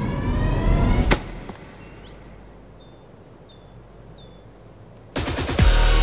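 A rising whoosh sound effect that ends in a sharp hit about a second in. A small bird chirps about five times over quiet outdoor background, and then loud electronic dubstep music starts near the end.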